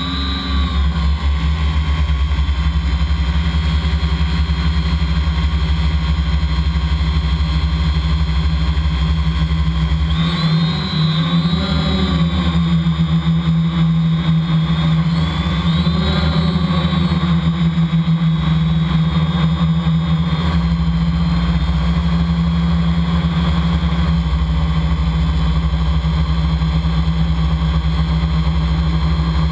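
Quadcopter's electric motors and propellers, heard from a camera mounted on the craft: a steady whine over a loud low rumble. The pitch wavers up and down about ten seconds in and again around sixteen seconds as the motors change speed.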